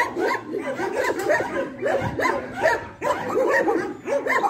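Dogs whining and yipping in a rapid, unbroken string of short high-pitched rising-and-falling cries.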